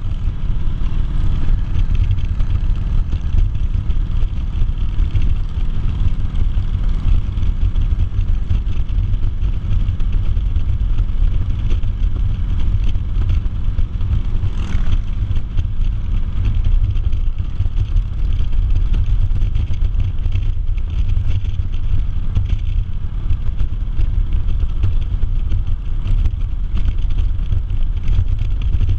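Harley-Davidson V-twin running steadily at cruising speed under a heavy low rumble of wind on a microphone mounted on the moving motorcycle.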